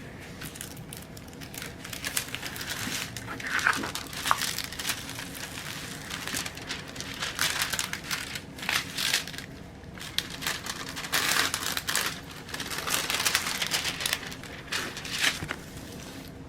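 Irregular crinkling and rustling of plastic packaging as a diamond painting kit's canvas is unwrapped and handled, in uneven bursts of handling noise.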